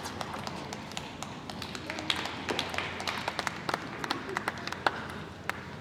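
Table tennis ball clicking off bats and table in a rally: a quick, uneven run of sharp taps, a few of them louder.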